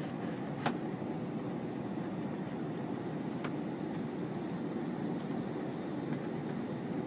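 Steady rumbling cabin noise of an airliner in flight, from its engines and the air rushing past the fuselage, with a sharp click about a second in and another faint one a few seconds later.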